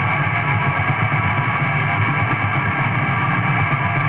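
Raw, lo-fi black metal: a dense, steady wall of distorted guitar and bass.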